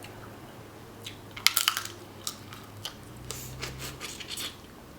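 Snow crab legs being cracked and picked apart by hand, a quick cluster of sharp shell cracks about a second and a half in, then scattered clicks and crunches.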